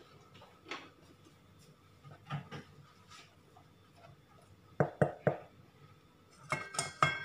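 Stainless-steel mixing bowls and a spatula knocking and clinking as flour is scooped from one bowl into the batter bowl: a few soft taps, three sharp knocks about five seconds in, then ringing metal clinks near the end.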